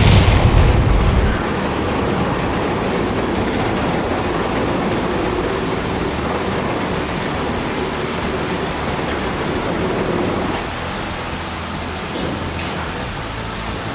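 A loud blast with a heavy low boom at the start, then the long, steady rumble of a brick-and-concrete tower block collapsing, which eases off about ten seconds in.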